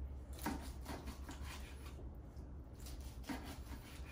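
Long knife sawing through a smoked brisket point and rubbing on the wooden butcher-block board in a few slicing strokes, as the meat is cut into cubes.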